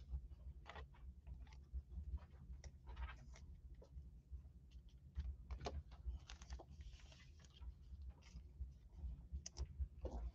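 Faint scattered clicks and rustles of trading cards being handled and picked up off a tabletop.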